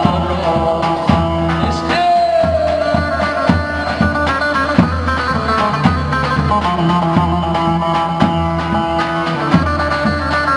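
Turkish çiftetelli dance tune played loud: a melodic lead over a steady bass and an even drum beat.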